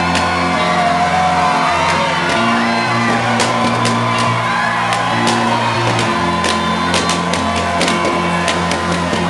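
Loud party dance music with a steady bass line, a crowd shouting and whooping over it. From about three seconds in, a scatter of sharp pops grows thicker: balloons from a balloon drop being burst among the crowd.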